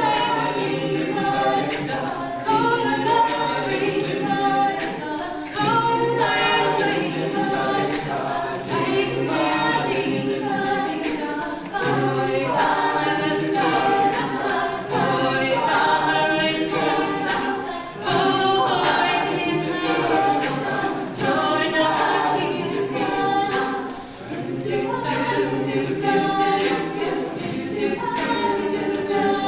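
A collegiate a cappella group singing a song in several voice parts, with sharp percussive hits keeping a beat under the voices.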